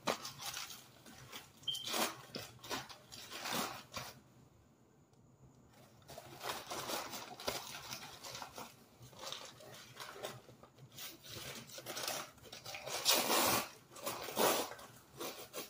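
A bag of microwaved and air-fried cornstarch being shaken and rummaged through by hand: irregular rustling and crinkling, with a pause of about two seconds around four seconds in and the loudest rustling near the end.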